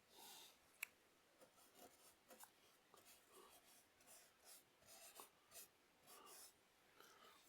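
Faint scratchy strokes of a paintbrush brushing paint onto canvas, a string of short strokes one after another, with a sharp click about a second in.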